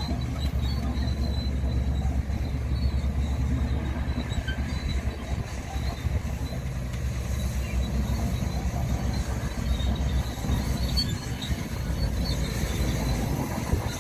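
Crawler bulldozer's diesel engine working under load with a deep, steady rumble, with scattered faint high squeaks.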